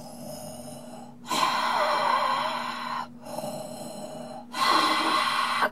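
Darth Vader's mechanical respirator breathing: two slow breath cycles, each a quieter breath followed by a louder one, with brief pauses between.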